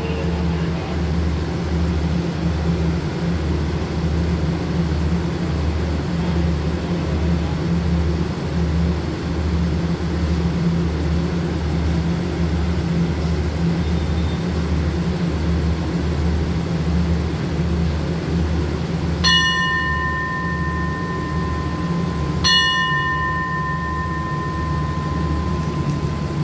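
A diesel express train running with a low, steady throb that pulses about twice a second as it slowly pulls away from the platform. About three-quarters of the way in, a bell rings twice with a clear, lingering tone, and the second ring is held longer.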